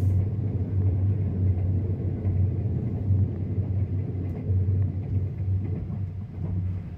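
Low, steady rumble of the Sunrise Express sleeper train running, heard from inside the carriage.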